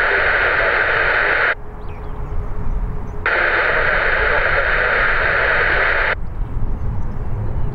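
Radio static hissing loudly and cutting off abruptly, then back on and off again, like a scanner's open transmission. A low rumble runs underneath.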